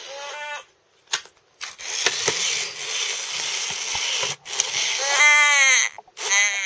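An old Furby's voice coming out distorted: a harsh static hiss with a few clicks, broken by short, high, warbling voice sounds near the start, around five seconds in and again near the end. It is the sound of a malfunctioning Furby left unused for eight years.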